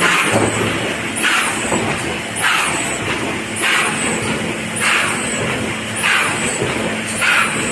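TMP-390 automatic cover machine running through its cycle, with a short hissing burst about every 1.2 seconds over a steady mechanical running noise.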